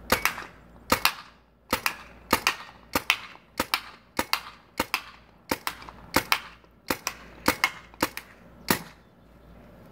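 Paintball rifle firing about fifteen shots in quick succession, roughly two a second, stopping about a second before the end.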